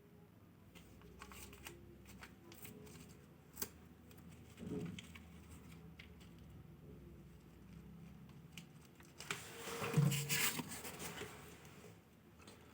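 Small plastic packaging being handled and opened: faint scattered clicks and crinkles, then a louder stretch of rustling and crinkling about nine seconds in.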